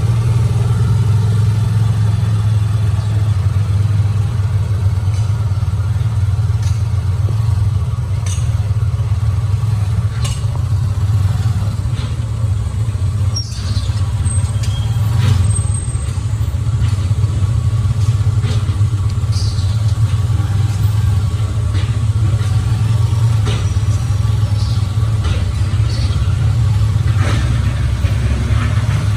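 Motor vehicle on the move: a steady, loud low rumble of engine and road noise, with a few faint ticks.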